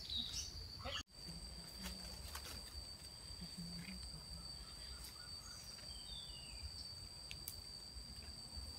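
Forest ambience with insects shrilling steadily in a high tone, joined by a second, higher insect tone after about a second, over a few faint clicks and rustles.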